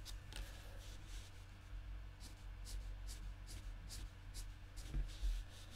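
Stampin' Blends alcohol marker brushed across card stock in short light strokes, faint scratches about two a second. A couple of soft knocks near the end.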